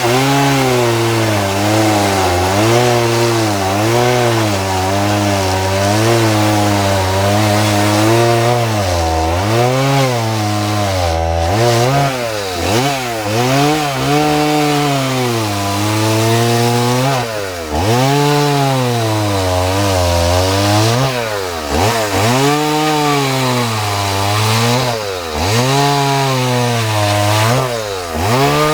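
Two-stroke chainsaw with a small carving bar running at high revs and cutting into a log, the engine speed dipping again and again as the chain bites into the wood and rising back as it clears the cut.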